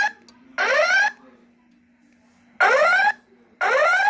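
Wheelock E70-series speaker strobe sounding a voice-evacuation alert tone: loud rising whoop sweeps, each about half a second, in groups of three about a second apart, with a pause of about a second and a half between groups. A faint steady low hum runs underneath.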